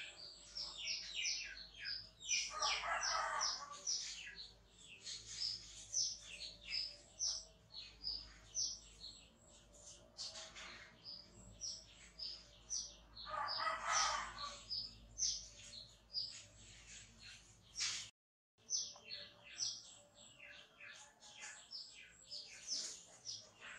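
Small birds chirping continuously in short, falling, high-pitched chirps, several a second. Two longer, coarser calls stand out a few seconds in and just past halfway. The sound drops out for a moment about three-quarters of the way through.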